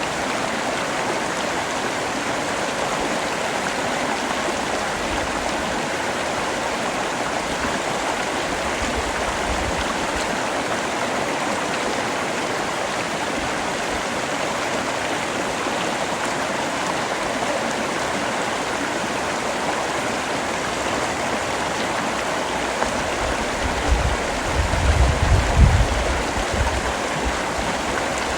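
Steady heavy rain falling, an even rushing hiss. A low rumble comes in near the end.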